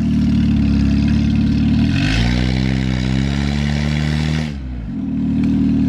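Lifted Ford Tempo's engine idling, then revved up about two seconds in, held high for a couple of seconds, and dropped back to idle, the exhaust echoing off a nearby building.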